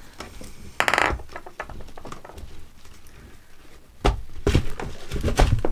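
Chunky potting substrate rattling and a plastic plant pot clicking and knocking as a plant is pressed into it by hand, with a short rustle about a second in and a run of louder knocks and thumps near the end.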